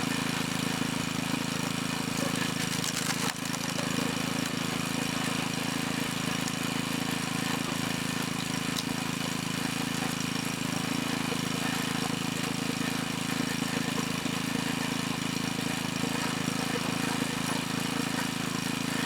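Log splitter engine running steadily at a constant speed, with a brief dip a little over three seconds in. The splitter is slow to extend and retract its cylinder, which the owner suspects comes from a worn belt.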